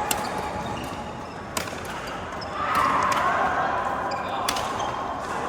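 Badminton racket strikes on a shuttlecock during a rally: a few sharp cracks, the first two about a second and a half apart, with people talking in the background.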